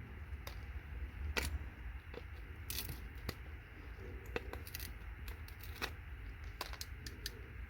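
Scattered light clicks and scrapes of hand tools prying small components such as fuses off a computer circuit board, with a low steady rumble underneath.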